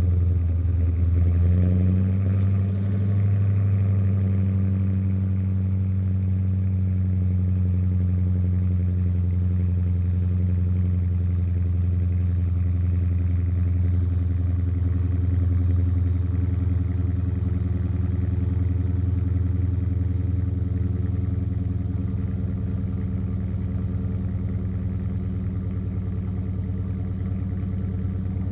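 Car engine idling steadily just after a cold start, its exhaust note even throughout and getting a little quieter in the last several seconds.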